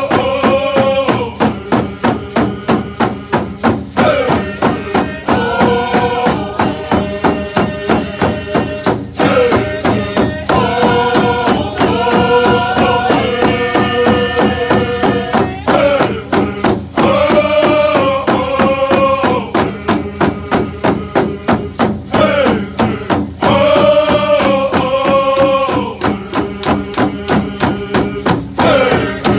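Men's voices singing a Stó:lō (Coast Salish) drum song together in unison over a steady, even beat of handheld frame drums. The sung phrases break off briefly every five or six seconds while the drumbeat carries on.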